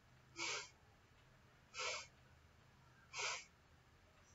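Three sharp, forceful exhalations through the nose, about a second and a half apart: kapalbhati breathing strokes, done as exhalation only with the belly held still.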